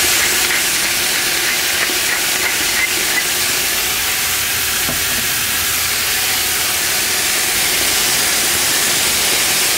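Rabbit pieces searing over high heat in olive oil in a stainless steel braising pot, with a steady high-pitched sizzle.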